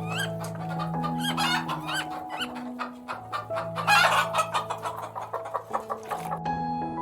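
Chickens clucking in rapid, short calls, with a louder call about four seconds in; the calls stop a little before the end, over soft piano music.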